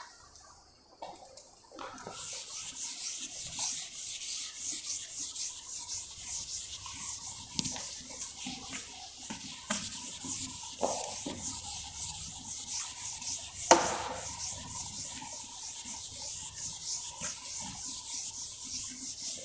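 Blackboard being wiped with a chalk duster: continuous rapid rubbing strokes across the board, starting about two seconds in. There is one sharp knock a little past halfway.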